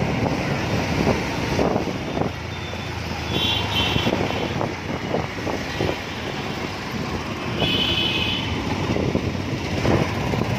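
Busy city street traffic heard from among the vehicles: a steady mix of engines and tyre noise, with short vehicle-horn beeps about three and a half seconds in and again about eight seconds in.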